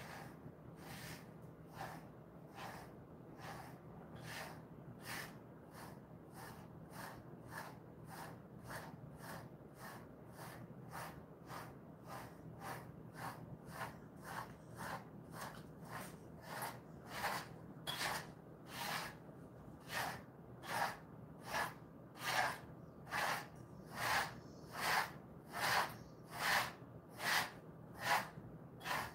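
Pet brush strokes through a Jindo-mix dog's coat: a regular swish, about one to two strokes a second, getting louder in the second half.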